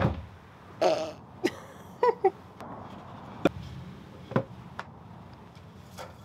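A few scattered, separate light knocks and clacks spread over several seconds, like plywood and tools being handled on a work surface.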